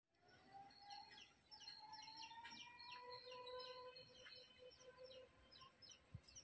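Faint birds chirping: many short, quick high calls overlapping. Under them runs a long, steady whistle-like tone lasting several seconds, joined partway through by a lower one.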